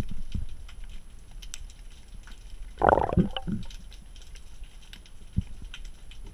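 Underwater ambience picked up by a diver's camera: a low rumble with scattered crackling clicks, and a short bubbling gurgle about three seconds in.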